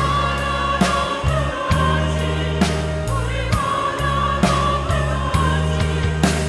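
Church choir singing in Korean in full harmony, with instrumental accompaniment. Sustained low bass notes sound under the voices, with sharp accents at regular intervals.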